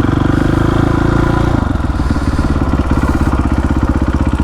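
Motorcycle engine held at steady revs, then the throttle rolls off about a second and a half in and it drops to a low, pulsing chug.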